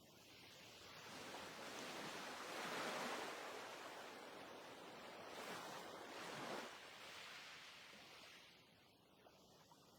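Faint rushing wash of noise that swells and ebbs like surf, peaking about three seconds in and again a few seconds later, then fading near the end.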